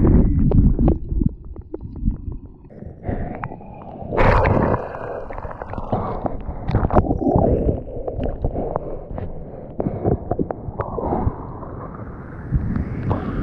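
Surf whitewater churning, gurgling and splashing around a GoPro Hero6 Black, heard muffled through the camera's waterproof body, with many sharp clicks of water striking it. A deep rumble is loudest in about the first second, and the churning surges again about four seconds in.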